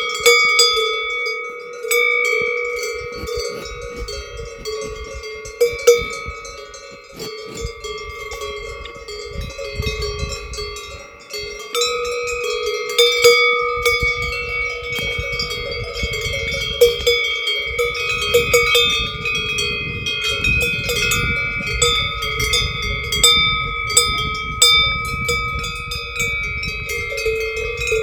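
Several cowbells on a herd of Hérens cows clanking irregularly as the cows move, with a low rumble underneath from about a quarter of the way in.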